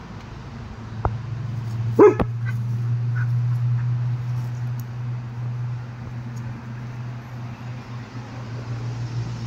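A dog gives one short, sharp bark about two seconds in, over a steady low hum that swells and then slowly fades.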